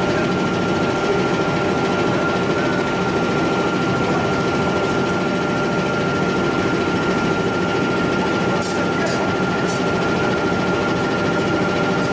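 Furnace air blower running steadily, a constant high whine over an even noise. Three faint short ticks come about nine seconds in.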